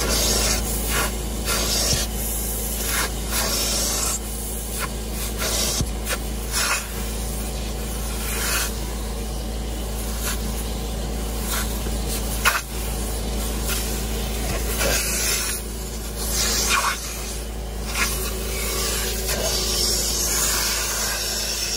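Carpet extractor running steadily as its clear upholstery hand tool sprays cleaning solution and sucks it back out of a cloth car seat. The tool's hiss and rasp are broken by repeated short strokes as it is dragged across the fabric.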